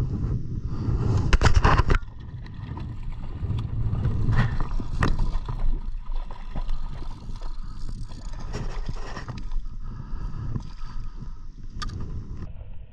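Handling noise while playing a fish from a kayak: loud rustling and scraping of a jacket sleeve right against the microphone in the first two seconds, then low wind rumble and water lapping at the kayak hull, with a few sharp knocks.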